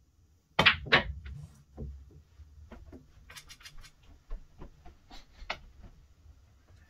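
Pool shot: the cue tip strikes the cue ball with a sharp click, and the cue ball smacks into an object ball with a second loud click about half a second later. Lighter clicks and knocks follow for several seconds as balls roll and one is pocketed.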